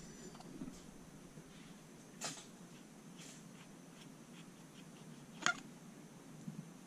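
Quiet bench work on a shotgun action: a few light clicks of a screwdriver and small metal parts, the sharpest about five and a half seconds in.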